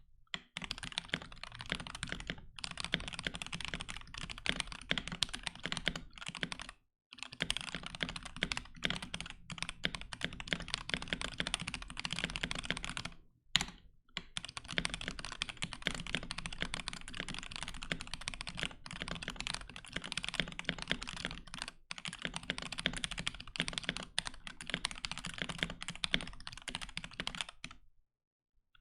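Fast, continuous typing on a KBD67 Lite R3 mechanical keyboard with lubed and filmed C3 Tangerine linear switches, a POM plate and POM keycaps: soft, subtly clacky keystrokes, broken by a few short pauses, stopping near the end. A few switches have some spring crunch or ping that the typist says can probably be heard.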